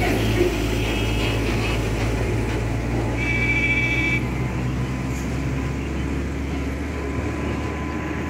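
An express train's locomotive approaching slowly from a distance with a steady low drone. A short high-pitched call is heard about three seconds in.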